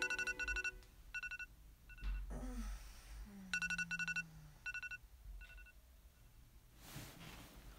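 An iPhone alarm tone beeping in quick clusters of short electronic pips, repeated several times. It stops a little over two-thirds of the way through as the alarm is silenced.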